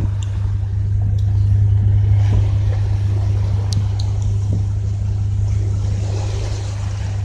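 A tugboat's diesel engine running under way, a steady low drone that holds at one pitch, with a faint hiss of wind and water over it.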